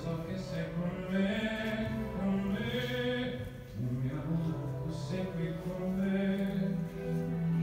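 Slow singing in long held notes, the phrases breaking every two seconds or so.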